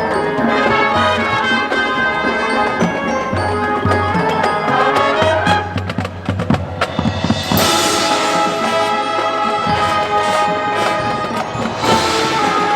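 Marching band playing: brass with mallet percussion and drums. Two bright crashes ring out, one a little past the middle and one near the end.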